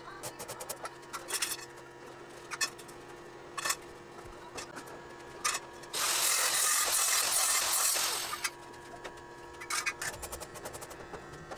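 Arc welding on steel tubing: a crackling hiss lasting about two and a half seconds in the middle, starting and stopping abruptly. Light metal taps and clicks come before and after it.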